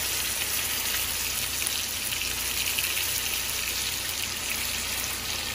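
Bone-in steak searing in hot browned butter in a skillet, a steady sizzle.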